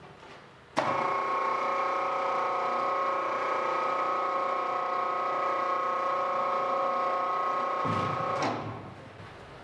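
Electric hoist motor running with a steady whine while it lowers a car body shell on straps. It starts suddenly about a second in and stops near the end.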